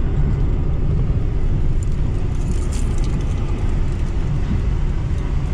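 Car driving on a rough dirt road, heard from inside the cabin: a steady low rumble of engine and tyres, with a couple of brief light rattles near the middle.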